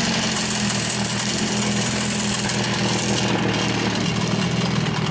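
Suzuki 15 hp oil-injected two-stroke outboard motor idling steadily with its leg in a water barrel. About three seconds in, its sound turns duller as the engine cowling is fitted over it.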